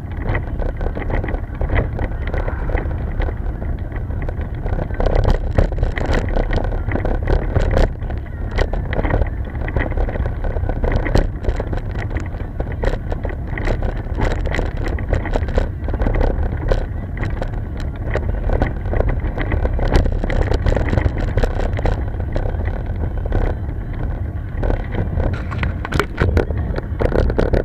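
Heavy, steady rumble of wind and road noise on a camera moving over rough asphalt. Many sharp rattling clicks run through it.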